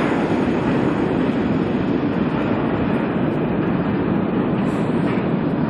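Budd R-32 subway train rumbling away down the tunnel: a steady low rumble whose higher sounds thin out over the first few seconds as it recedes.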